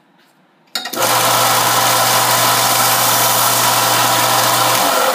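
Belt sander starting abruptly about a second in and running steadily with a low motor hum under a loud grinding hiss as it takes a little more off the corner of a thin aluminum plate, then switched off and winding down near the end.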